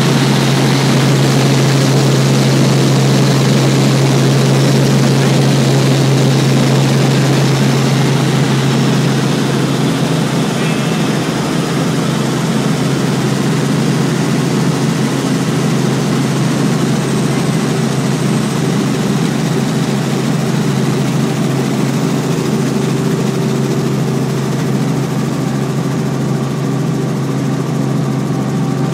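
Helicopter in flight, heard from inside the cabin: the engine and rotor make a loud, steady drone with a strong low hum.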